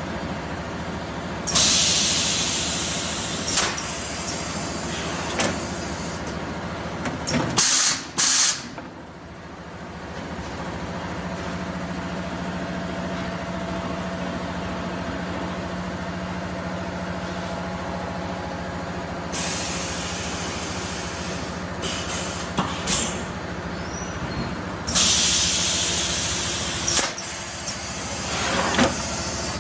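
Semi-automatic PET bottle blowing machine running its pneumatic cycle: loud bursts of compressed-air hiss, each a second or two long and several seconds apart, with sharp clicks of the air cylinders over a steady machine hum.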